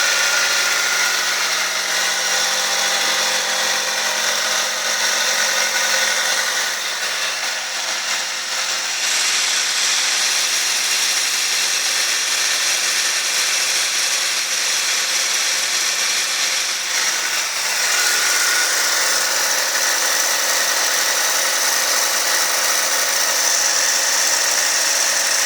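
1997 Honda Civic EX making an unidentified strange noise: a steady, high-pitched whirring hiss, like a power tool, that eases off briefly twice and picks back up. The owner doesn't know where it comes from or whether driving on it could do damage.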